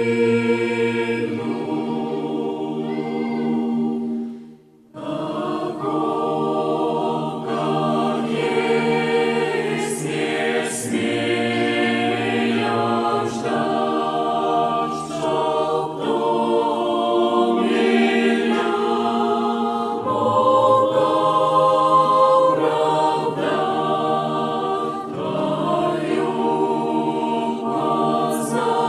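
Youth choir singing a hymn in several-part harmony, with a short break between phrases about four and a half seconds in.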